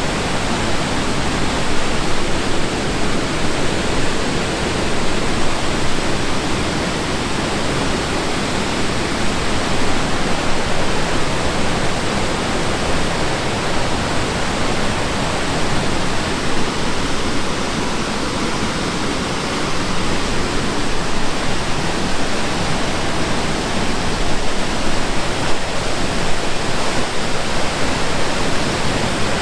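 Loud, steady rush of whitewater pouring over rock, an even wash of water noise with no break.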